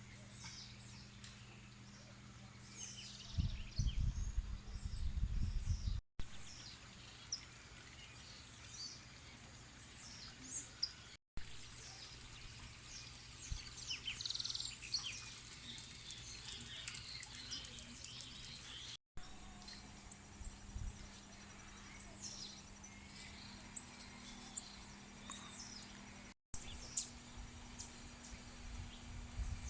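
Wild birds chirping and calling, many short high calls throughout over a faint steady low hum. A few seconds in comes a burst of low rumbling, like wind or handling on the microphone, and the sound cuts out briefly four times.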